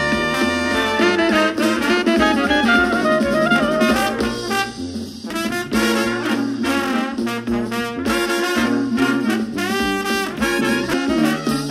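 Instrumental background music: a melody line over a steady beat.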